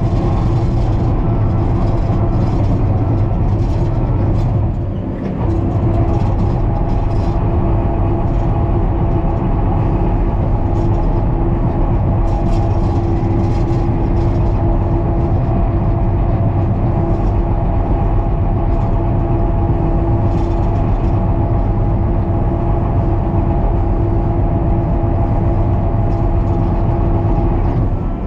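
John Deere 550K crawler dozer's diesel engine running steadily under grading load, with a steady whine over it. The sound dips briefly about five seconds in, then comes back to the same drone, with a light irregular clatter on top.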